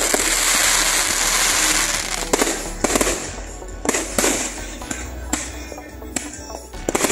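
Aerial fireworks bursting: a dense crackle through the first two seconds or so, then a run of separate sharp bangs, with more near the end.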